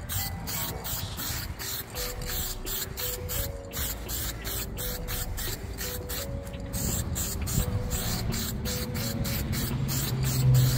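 Aerosol spray-paint can hissing in quick short bursts, several a second, as paint is sprayed onto a metal intake pipe. Faint background music plays underneath.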